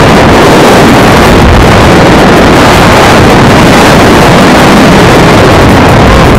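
Loud, steady rush of wind buffeting the camera microphone in tandem skydiving freefall.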